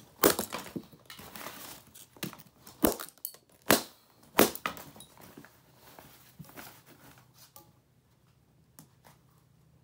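Brittle plastic parts of a vintage Sony cassette player cracking and snapping as they are broken apart by hand. There are several sharp snaps with crackling between them over the first five seconds, then only quiet handling.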